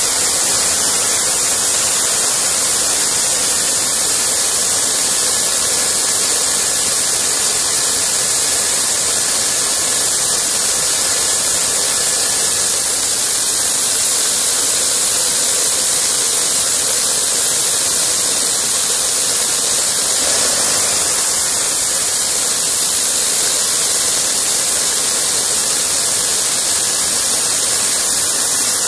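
Homemade gas turbine jet engine built from a turbocharger, running steadily: a loud, even rushing roar with a thin high whine from the spinning turbine.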